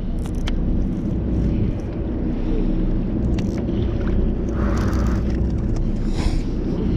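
Low, steady rumble of a fishing boat's engine running, with a few short clicks and knocks over it.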